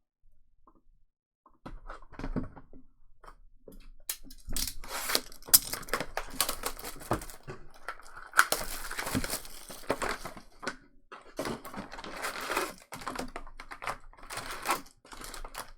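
Trading-card packs being torn open and the cards handled: a dense, irregular run of crinkling, ripping and clicking that starts a couple of seconds in.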